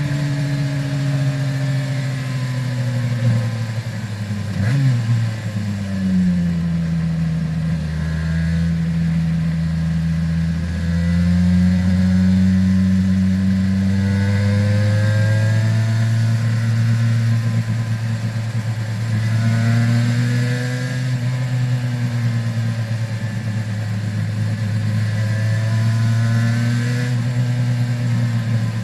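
Aprilia RS 250's two-stroke V-twin with Arrow exhausts running under way. Its pitch rises and falls gently with the throttle, with one quick sharp rev and drop about five seconds in.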